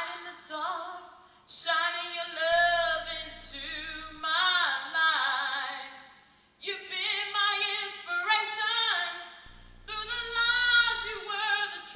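A woman singing solo into a microphone, unaccompanied, in phrases of long held notes with wide vibrato and a short breath break about six and a half seconds in.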